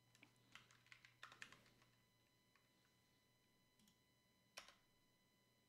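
Faint typing on a computer keyboard: a quick run of keystrokes over about two seconds, then a single louder click about four and a half seconds in.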